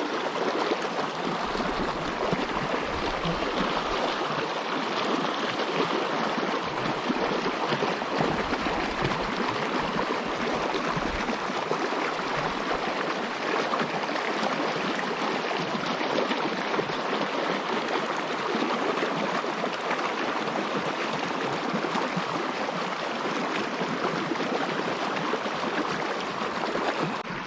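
Small mountain creek flowing close by: a steady, even babble of running water.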